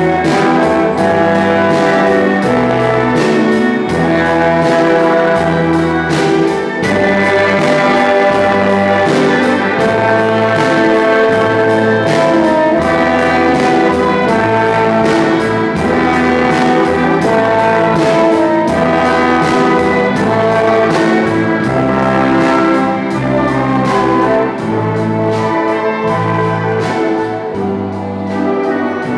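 School orchestra playing: trumpets, trombones and saxophones carry sustained chords together with violins and strummed guitars, over a steady beat.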